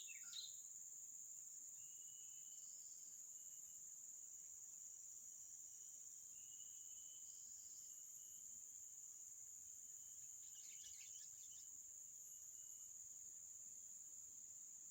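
Insects buzzing in a steady, high-pitched drone, with short bursts of bird calls right at the start and again about ten seconds in, and a few faint thin whistles in between.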